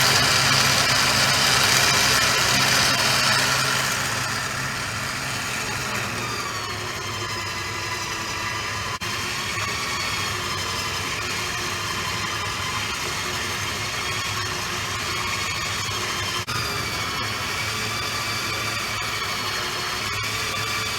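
Vehicle engine idling steadily, louder for the first few seconds, with a higher whine wavering in pitch over it.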